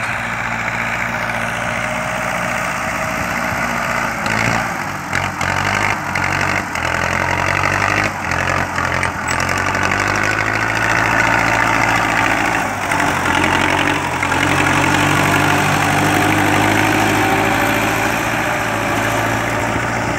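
Belarus tractor's diesel engine running steadily as it pulls a laser land-leveler scraper through dry, stony soil, with a few short knocks between about four and nine seconds in.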